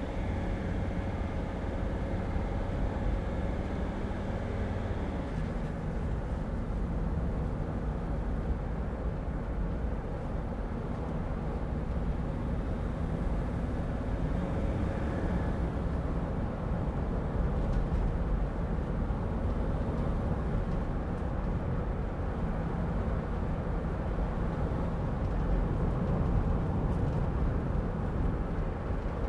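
Steady road and engine noise of a 2006 Mercedes Sprinter van being driven, heard from inside the cab: a continuous low rumble with a faint hum.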